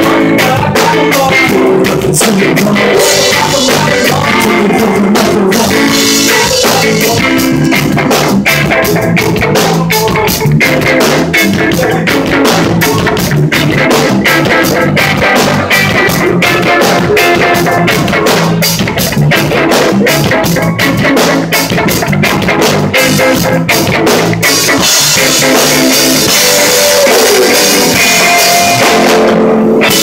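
Live rock band playing: electric guitar over a drum kit keeping a steady beat, loud and full.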